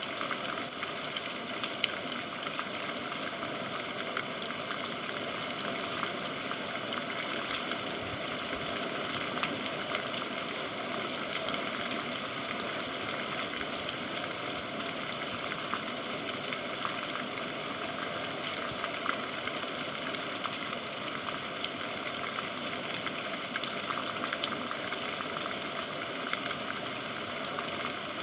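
Steady rain falling: a constant hiss with many small drop ticks scattered through it.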